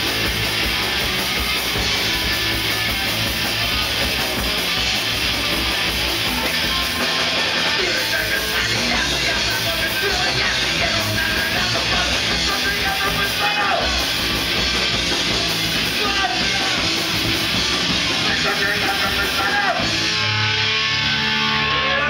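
Loud rock music with guitars, dense and steady throughout, thinning a little in the highs near the end.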